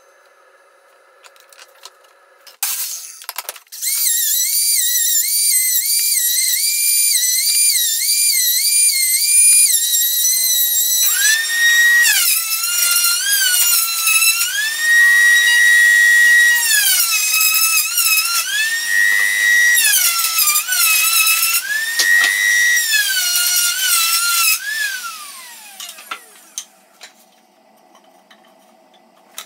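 Electric motor of a sliding compound miter saw in sped-up playback, giving a high whine that keeps winding up, dipping in pitch as the blade bites into the wood and rising again. Near the end it spins down with a long falling whine.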